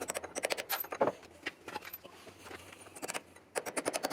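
Quick metallic clicks and clinks in short clusters near the start, about a second in and again near the end, from the retaining wire and steel parts of a tractor's power steering hydraulic cylinder being handled.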